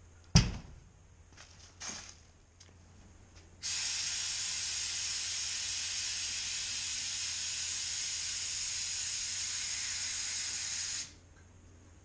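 A sharp knock about half a second in, then a steady hiss of pressurised gas escaping for about seven seconds, starting and cutting off abruptly.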